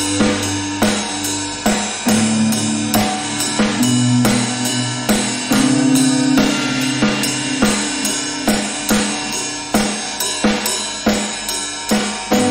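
Improvised guitar-and-drums duo: a drum kit keeps a steady beat on bass drum, snare and cymbals, about two hits a second, under held, sustained guitar notes.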